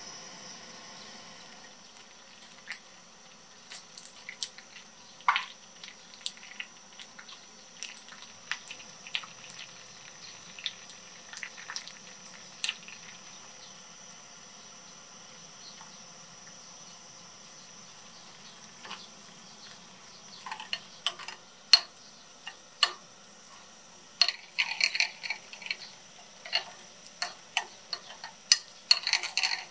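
Liquid poured from a carton into a glass bowl, then a metal spoon clicking and scraping against the glass as curry paste is stirred in. The clicks come scattered at first, stop for a few seconds midway, and come thick and fast in the last ten seconds.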